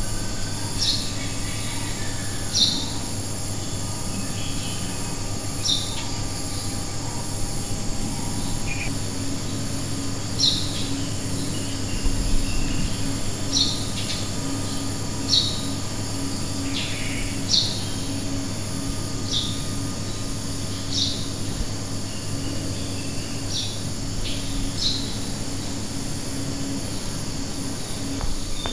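A bird repeats a short, high chirp about a dozen times, every couple of seconds, over a steady low hum and a steady high insect drone.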